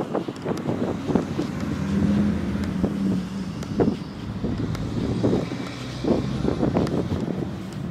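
Footsteps on asphalt, about two or three a second, with camera handling and wind on the microphone over a steady low engine hum from a car in the parking lot.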